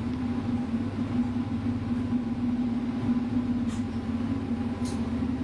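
ATV quad bike's 250 cc water-cooled engine idling steadily, a constant low hum and rumble.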